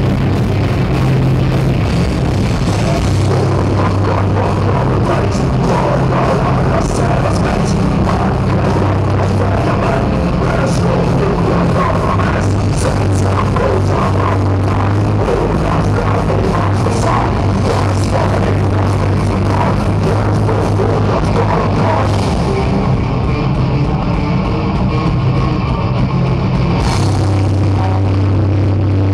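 Heavy metal band playing live at full volume: distorted electric guitars and bass holding heavy low notes over drums. About three-quarters through, the top end thins out for a few seconds, then a crash brings the full band back in.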